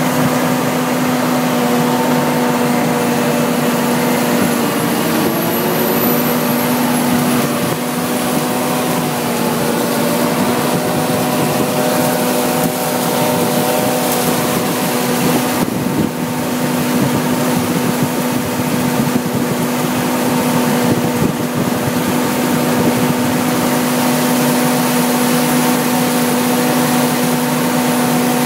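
John Deere 4730 self-propelled sprayer's diesel engine running at a steady, unchanging pitch as the machine drives through tall corn, with an even hiss over the hum.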